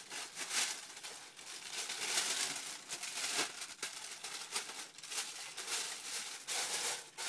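Original sneaker-box wrapping paper crinkling and rustling in repeated bursts as it is handled.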